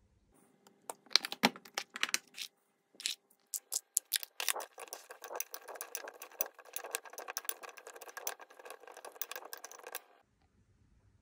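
A metal spoon tossing cut broccoli stems in a glass bowl: a dense run of clinks and scrapes against the glass, played back sped up, that stops suddenly near the end. Before it, a handful of sharp separate clicks and taps.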